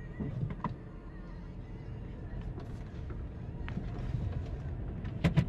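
Steady low rumble from inside the cabin of a 2002 Pontiac Grand Am with its 3.4-litre V6 running, with a few light clicks about half a second in and two sharp clicks near the end.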